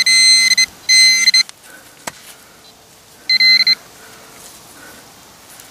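Orange Garrett handheld pinpointer buzzing its high alarm tone as it is pushed into the soil over a metal target, here a thin copper coin: a loud steady buzz that breaks off about a second and a half in, then one short burst about three and a half seconds in.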